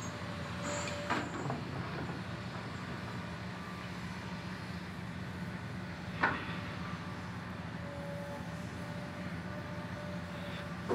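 Steady low diesel drone of heavy mining machines: a Hitachi 870 excavator loading Caterpillar 777 haul trucks. There is one sharp clank about six seconds in.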